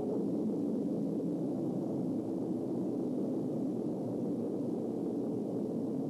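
Rocket liftoff sound: a steady, dense rumble of rocket engines running at launch.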